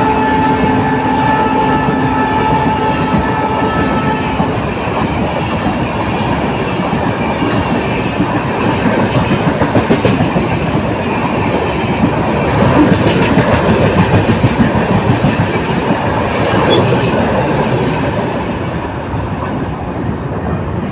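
WDM3D diesel locomotive's horn sounding in a steady chord that cuts off about four seconds in. The train then runs past at speed with a continuous heavy rumble and the clatter of wheels over rail joints.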